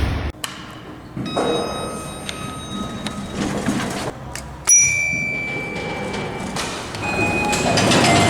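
Elevator chimes and beeps from several different lifts, spliced one after another: a ringing chime with overtones in the first couple of seconds, a long steady high beep starting about halfway in, then shorter tones near the end.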